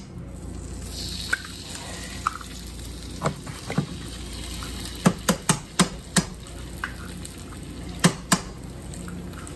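Food frying in a pan with a steady sizzle, broken by a dozen or so sharp knocks of a utensil against the pan, bunched in the middle of the stretch.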